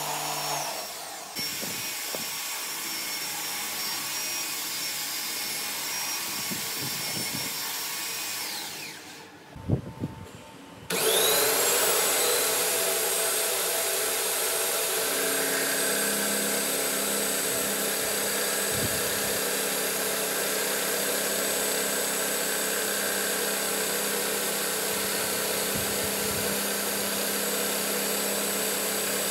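Motorized spindle attachment on a metal lathe machining a fluted steel cutter, running with a steady high whine. About eight seconds in it winds down and a couple of knocks follow. Near eleven seconds it starts up again with a rising whine and runs on steadily.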